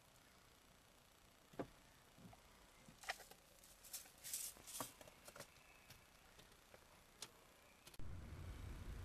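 A few small sharp clicks and short rustles of something being handled close by, in a near-quiet car. About eight seconds in, a steady low rumble of a car interior sets in.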